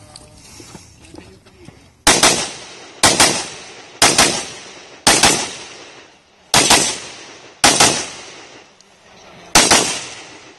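AR-15-style rifle firing seven loud shots, roughly one a second. The first four come in an even string, the next two follow after a short pause, and the last comes after a longer pause.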